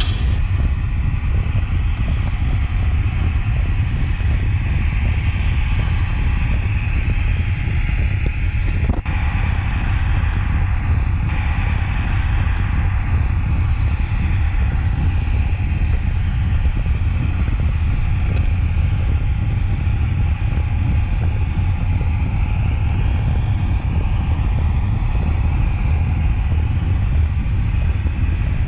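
Steady rumble and rattle of a model train running along its track, heard through a camera riding in a wagon behind a model Class 55 Deltic diesel locomotive. A single sharp click comes about nine seconds in.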